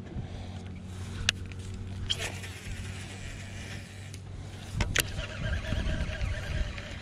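Steady low hum of a bass boat's electric trolling motor, with two sharp clicks and a higher whir joining about five seconds in.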